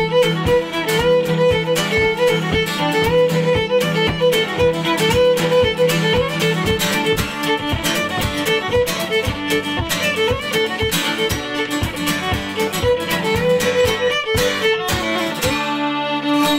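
Fiddle playing a fast reel over a strummed acoustic guitar, the two finishing together on a held chord that rings out near the end.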